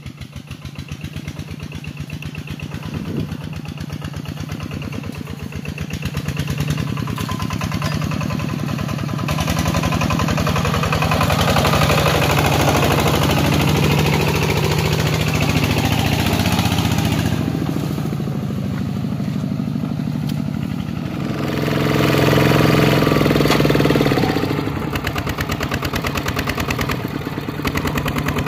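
Two-wheel walking tractor's single-cylinder diesel engine running with a rapid, even chugging beat, hauling a loaded trailer of sawn planks. It grows louder as the tractor comes closer.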